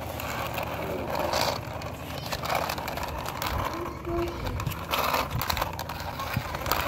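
Small plastic toy fire truck pushed by hand across a concrete floor, its plastic wheels rolling with a continuous fast rattling and grinding.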